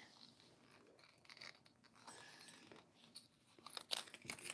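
Mostly near silence, with faint clicks and rustles of a small wallet being handled, more of them near the end.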